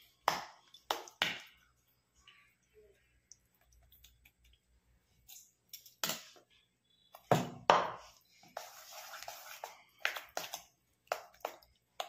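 Steel spoon stirring thick semolina-and-curd batter in a steel plate: sharp clinks of spoon on metal, a quiet stretch in the first half, the loudest knocks a little past halfway, then a spell of scraping and a few more clinks near the end.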